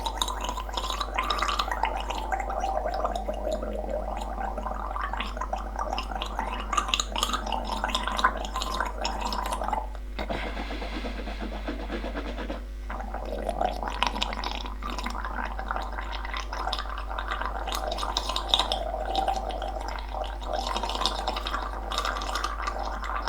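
A person gargling in the back of the throat, a continuous bubbling rattle with a break of about two seconds roughly ten seconds in before the gargling starts again.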